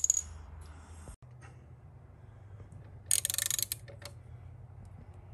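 Socket ratchet wrench on a long extension clicking in a quick run of fast, even clicks lasting under a second, about three seconds in, as a kickstand bolt is tightened down. A sharp metallic click at the very start.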